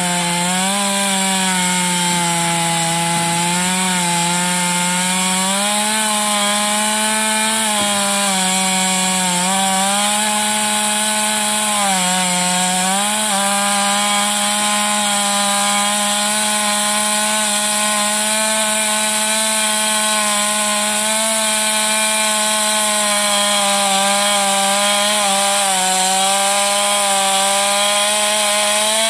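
Two-stroke gas chainsaw running at full throttle while cutting through a 10-inch log. Its engine pitch sags briefly several times in the first half as the chain loads in the wood, then holds steady.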